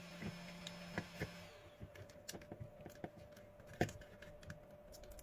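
Scattered light clicks and taps of small parts and wires being handled as a rebuilt battery pack is set back into a car tyre inflator's plastic housing. A faint hum stops about one and a half seconds in.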